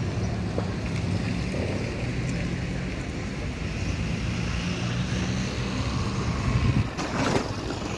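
Low, steady rumble of a motor vehicle engine running, swelling a little about seven seconds in, with a brief louder noise just after.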